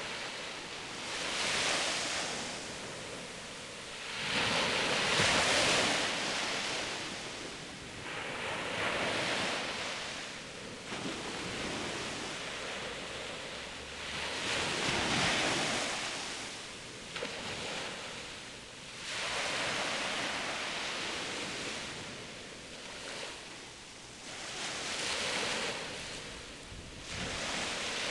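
Small sea waves breaking and washing up a beach, the surf swelling and falling every four to six seconds.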